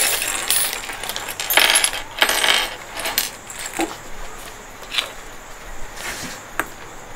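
A plastic bag of sewing-machine accessories crinkling as it is opened and emptied, and small parts (plastic bobbins, metal presser feet, a little screwdriver) clattering onto a table. The main cluster of rustling and clatter comes in the first half, followed by a few single clicks as parts are set down.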